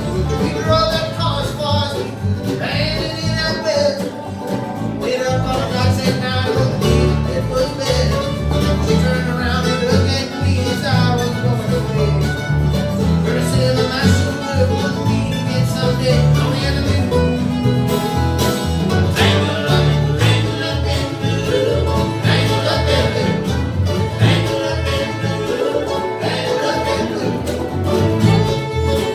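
Live bluegrass band playing: fiddle, mandolin, acoustic guitars and upright bass together.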